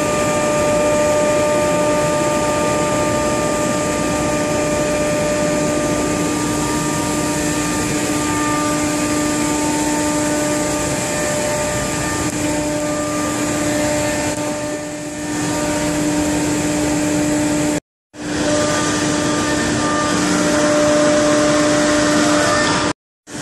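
Motion Master 5-axis CNC router running, its 10 HP Colombo spindle giving a steady whine over a loud rushing noise. The sound cuts out to silence briefly twice, about eighteen seconds in and again just before the end.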